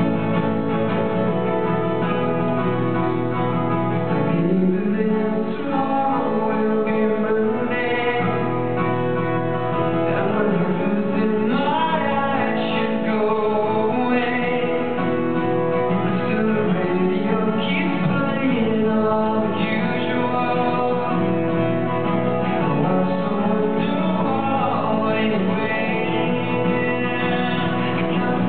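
Acoustic guitar strummed steadily, with a male voice singing along from about eight seconds in: a live solo acoustic performance.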